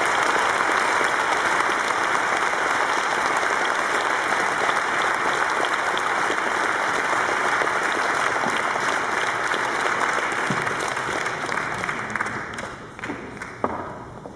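Audience applauding: many people clapping steadily, with the applause dying away near the end.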